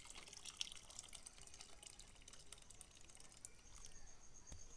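Hot water poured into a pan of cooked lentils, a faint splashing trickle that is strongest at first and tapers off after about three seconds.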